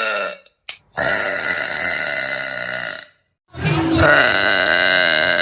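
A woman's long burps: the end of one, then two drawn-out burps of about two seconds each with a short silence between them.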